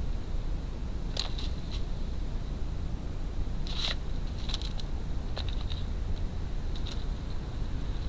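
A crow's beak pecking and tapping at food in a plastic feeding dish: a scatter of short, sharp clicks in small clusters, over a steady low rumble.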